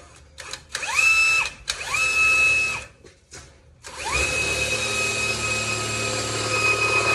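Electric drill with a large bit drilling into the truck's sheet-metal hood: two short spin-ups, then a long steady run of about four seconds, its whine rising in pitch as the motor gets up to speed each time.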